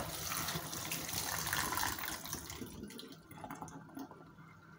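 Cold kitchen tap water running onto boiled noodles in a stainless steel mesh colander in a steel sink as they are rinsed by hand. The water stops about three seconds in, leaving a few faint drips and clicks.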